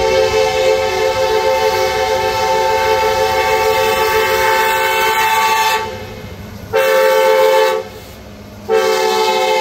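Norfolk Southern freight locomotive's air horn sounding for a grade crossing: a long blast of about six seconds, a short blast about seven seconds in, then another long blast starting near the end.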